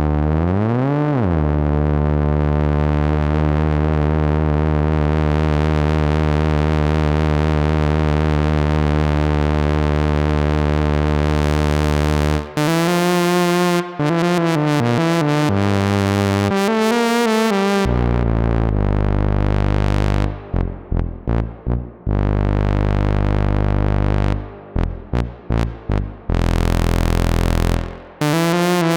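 Eurorack modular synthesizer built from Joranalogue modules playing a brass-like patch with a touch of reverb. A long held chord scoops up in pitch at the start and grows brighter over about twelve seconds. Then come shorter chords with pitch bends, two runs of quick staccato stabs, and a final held chord.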